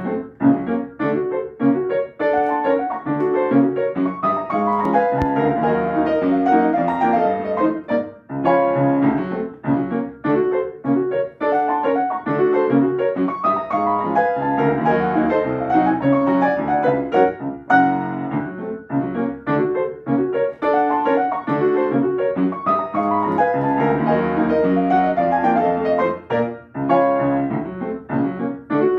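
Yamaha upright piano played solo: a ragtime piece in quick, dense notes, with brief breaks between phrases about 8 and 18 seconds in.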